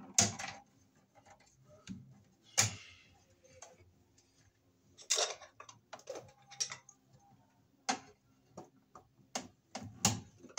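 Hands working wiring inside a metal breaker panel: irregular sharp clicks, taps and brief scrapes a second or more apart as wires and parts knock against the metal box.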